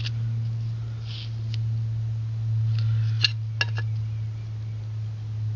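A steady low hum, with a few light clicks a little over three seconds in.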